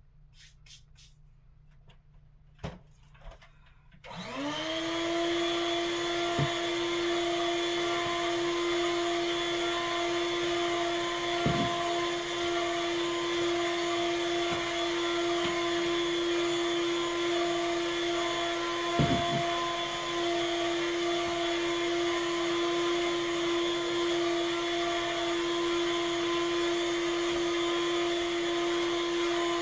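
Vacuum cleaner switched on about four seconds in, its motor spinning up quickly to a steady whine and then running steadily. A couple of light clicks come just before it starts, and two brief knocks sound while it runs.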